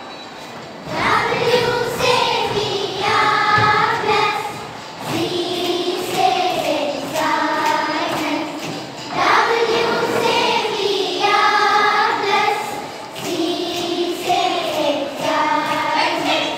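A group of young girls singing a song together, in phrases of about four seconds with the same tune coming round again.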